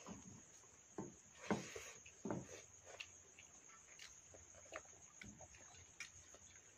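Faint eating sounds of rice eaten by hand from steel bowls: a string of separate mouth smacks and wet slurps, with small handling sounds, over a steady high chirring of crickets.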